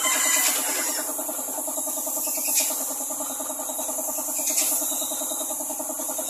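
Air-fed paint spray gun hissing steadily as it sprays red paint onto a car body, with a few brief louder bursts of air, over the steady pulsing hum of the air compressor that feeds it.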